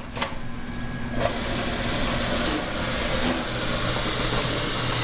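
Commercial countertop food processor running steadily, its blade spinning and pureeing roasted butternut squash with condensed milk.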